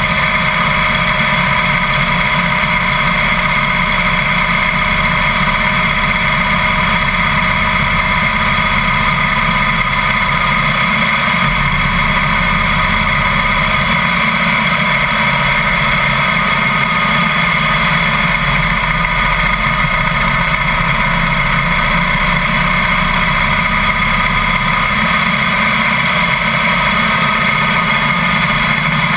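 Harley-Davidson Heritage Softail V-twin engine running steadily at a cruise, mixed with wind and road noise on the bike-mounted camera.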